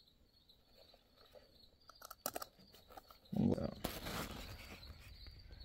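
Small metal parts clicking as they are handled, then about three and a half seconds in a louder spell of rustling and knocking as tools are shifted about on a workbench.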